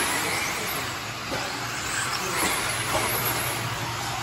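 Several 1/10-scale electric four-wheel-drive RC buggies racing on a dirt track: a continuous mix of electric motor whine rising and falling with throttle, plus drivetrain and tyre noise. A steady low hum runs underneath.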